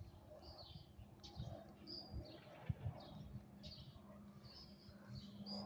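Small birds chirping over and over in short, high calls, with a faint low steady hum underneath that grows a little stronger near the end.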